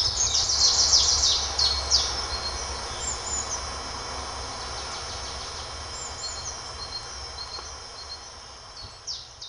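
Woodland birdsong: a bird sings a fast run of high notes in the first couple of seconds, then scattered chirps follow, over a low steady rumble. The whole sound fades out gradually toward the end.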